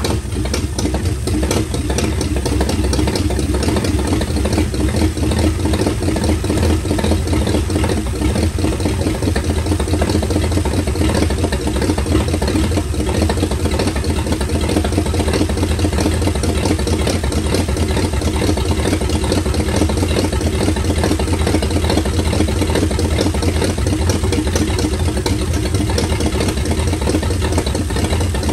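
1936 Ford 1.5-ton truck's flathead V8 running steadily while fuel is poured by hand into its open carburetor. It runs evenly with no rod knock.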